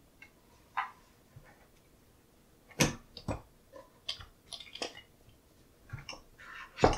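A hand-worked lever-action grafting cutter clicking and clacking as its handle is raised and pressed down on an apple stick. The clicks are scattered, with the two loudest about three seconds in and near the end.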